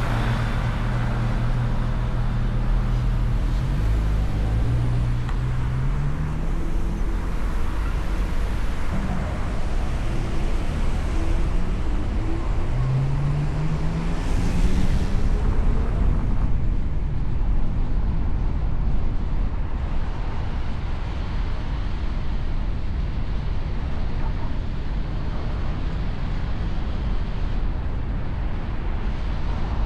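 Motor vehicle driving in city traffic: steady engine and road noise, with the engine pitch rising twice as it accelerates, about five and thirteen seconds in.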